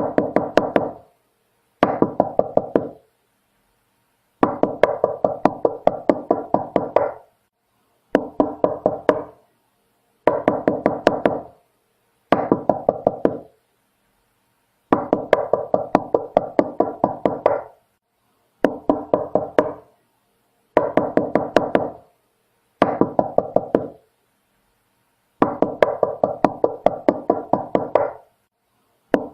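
Knocking on a door: runs of quick, evenly spaced raps, several to a second, each run lasting one to three seconds with short pauses between, repeated over and over.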